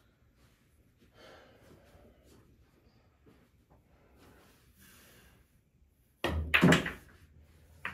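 A pool shot: a knock as the cue strikes the cue ball about six seconds in, followed by a louder, sharper clack of billiard balls colliding, and a smaller knock near the end as a ball meets the cushion.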